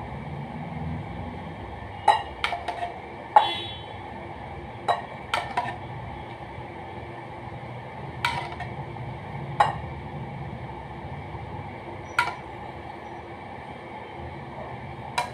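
Metal spoon clinking and scraping against a steel pan and a ceramic bowl as thick custard is spooned out: about ten short, sharp clinks at irregular spacing. A faint steady hum lies underneath.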